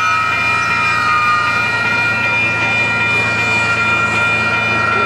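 Union Pacific No. 844 steam locomotive's whistle blowing a long, steady chord of several notes, with the locomotive rumbling underneath.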